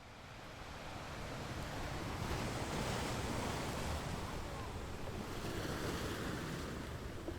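Sea surf washing on the shore, with wind, fading in over the first couple of seconds and then swelling and easing.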